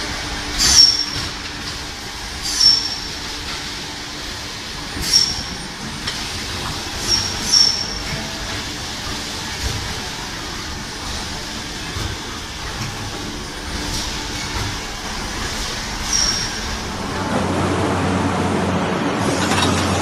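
Thermoforming vacuum packaging machines running in a production hall: a steady machine din with short, sharp high-pitched hissing squeaks every couple of seconds, fewer in the second half. Near the end the sound gives way to a louder, steadier rushing noise.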